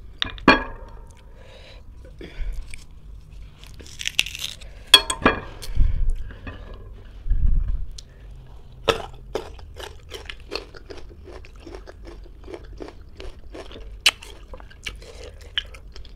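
Crisp crunching as raw green ambarella fruit is chewed, a rapid even run of crunches about three a second through the second half. Earlier there are a few sharp clicks and knocks.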